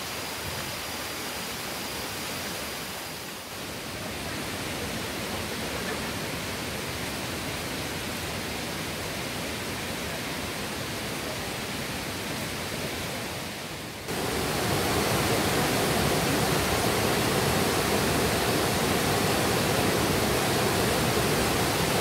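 Steady rushing of a waterfall in heavy flow, fairly soft at first, then suddenly louder and fuller about two-thirds of the way through.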